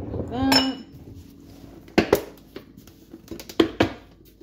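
Kitchen containers being handled: sharp clicks and knocks as the flour jar is set aside and the plastic clip latches of a snap-lid sugar container are unsnapped and its lid lifted, after a short voiced sound near the start.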